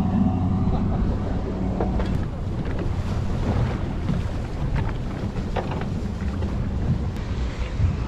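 Wind buffeting the microphone on a boat at sea, over the wash of waves against the hull, with a few faint clicks.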